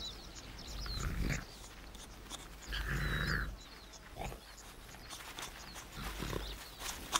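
A jackal mouthing and nosing at an ostrich egg, trying to get it open: a few short bursts of snuffling and scraping at the shell, with faint bird chirps.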